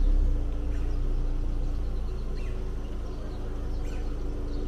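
Car engine running at low speed with a steady low rumble and hum while the car is manoeuvred in reverse. Faint bird chirps sound over it.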